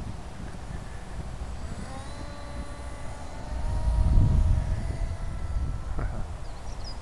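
Small brushless electric motor and 5x5-inch propeller of a foam RC canard plane whining steadily as it flies past, audible for a few seconds from about two seconds in. Heavy low rumble of wind on the microphone, loudest about four seconds in.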